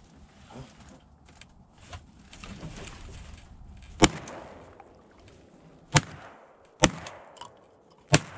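Four shotgun shots at ducks flying over: the first about four seconds in, then three more close together near the end, each a sharp crack with a short echo.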